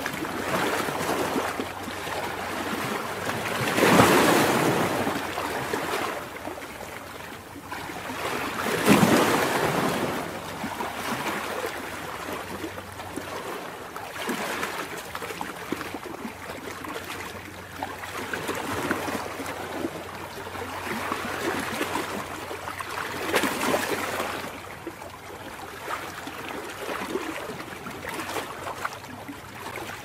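Ocean waves breaking and washing up a sandy beach: a steady hiss of surf that swells with each wave, loudest about four and nine seconds in and again near the end.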